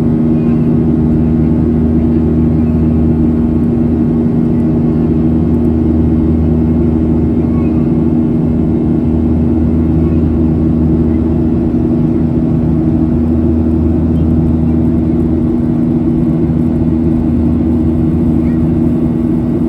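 Boeing 737-800's CFM56-7B turbofan engines running steadily at climb power, heard inside the cabin beside the engine as a loud, even drone with a constant low hum.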